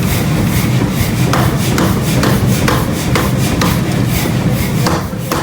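Hammer blows on steel, about two a second, each with a short metallic ring, over the steady low hum of running workshop machinery.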